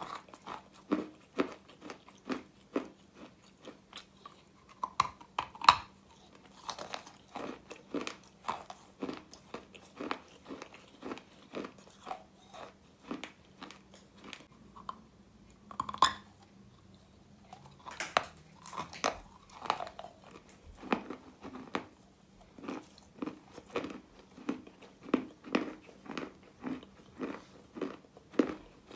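A Russian chalk egg being bitten and chewed close to the microphone: a continuous run of irregular crunches, with a few sharper, louder bites about five and a half seconds in and again about sixteen seconds in.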